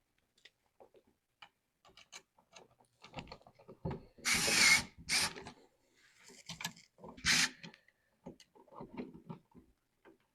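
Wired electrical outlet being pressed into a wall box, its stiff old wires and plastic body scraping and clicking against the box, with louder short scrapes about four seconds in and again about seven seconds in.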